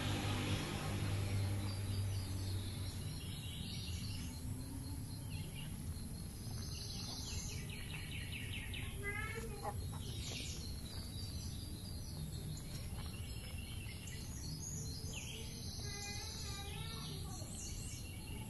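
Outdoor ambience of several birds singing and chirping, with trills and quick runs of falling chirps scattered through it, over a steady low rumble. A louder low hum fades away over the first couple of seconds.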